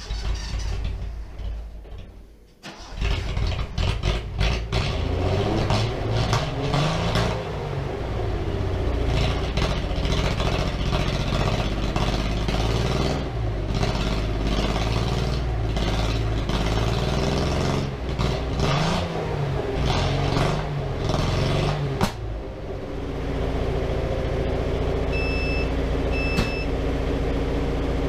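1975 Datsun 280Z's straight-six engine, running on newly fitted fuel injectors, drops out briefly near the start, then picks up again and is revved up and down over and over. About 22 seconds in it settles to a steady idle. Two short high beeps sound near the end.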